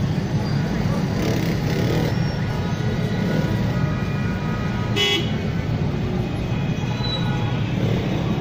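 Steady street traffic noise, with engines running, and a short car horn toot about five seconds in.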